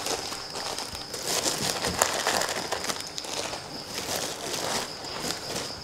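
Plastic bags crinkling and rustling in irregular bursts with small clicks as offerings are handled and set out on a concrete floor, over a faint steady high-pitched tone.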